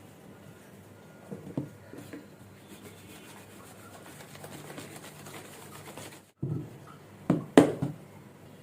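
Rubbing and handling sounds of food preparation, with a few soft knocks, the loudest near the end. The sound drops out briefly about six seconds in.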